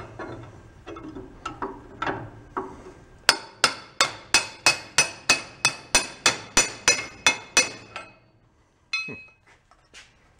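Hammer blows on a brass drift held against the stuck connecting rod inside a cast-iron small-engine crankcase, driving at a part that will not come off the rod. A few lighter knocks come first, then a steady run of about fourteen sharp, ringing metallic strikes at about three a second, and a single clank near the end.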